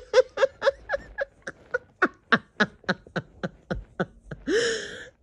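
A woman laughing in a long run of short, quick "ha" pulses, about four a second, ending with a breathy gasp near the end.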